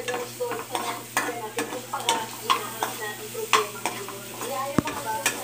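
Metal ladle scraping and clinking against a wok, about two strikes a second, while sliced onions and garlic sizzle in hot oil: the sauté of the aromatics.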